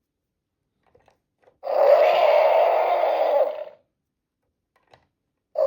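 Electronic dinosaur roar sound effect from a Mattel Jurassic World Epic Attack Spinosaurus toy's speaker, set off by pressing its sound button. A few faint clicks come first, then one roar of about two seconds, and a second roar begins near the end.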